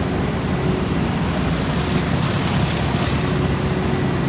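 Heavy diesel road-paving machinery running steadily, a low engine rumble with a steady hum over it.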